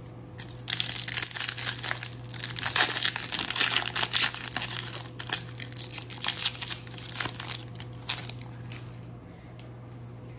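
Foil wrapper of a Topps baseball card pack being torn open and crinkled, a dense run of rustling and crackling that starts about half a second in, is thickest in the middle and thins out near the end, over a steady low hum.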